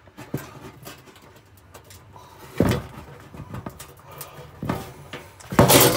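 Faint clicks and scrapes of hands working inside a metal oven cavity, with two louder short noises, one about two and a half seconds in and a stronger one near the end.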